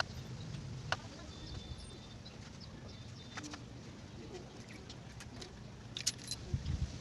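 A few sharp metal clicks and taps from hand tools and parts being handled on a drum brake assembly, with a small cluster near the end, over faint bird chirps.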